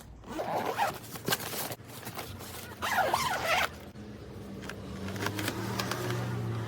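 Zipper on a small hardshell travel case being pulled, with scratchy handling noises; the loudest rasp comes about three seconds in. A low steady hum comes in about five seconds in.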